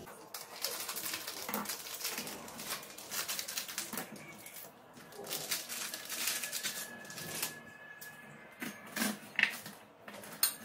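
Dry Maggi instant noodles being crushed by hand in their plastic packet: rapid crackling and crunching of the brittle noodle block and wrapper, with a few louder knocks near the end.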